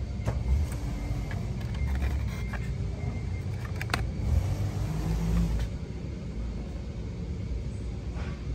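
Car on the move: a steady low rumble of engine and road noise, with a few sharp clicks, one about four seconds in.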